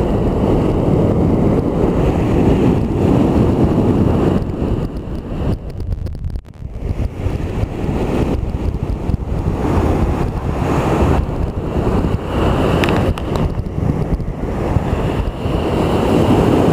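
Sea waves washing on the shore, mixed with wind buffeting the microphone. The rush rises and falls in gusts and dips briefly about six seconds in.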